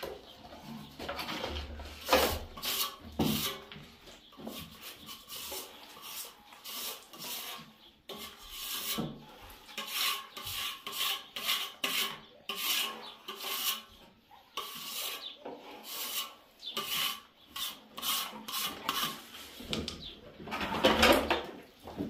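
Plastering trowel scraping and spreading wet white plaster over a mud wall in short repeated strokes, about one or two a second, louder near the end.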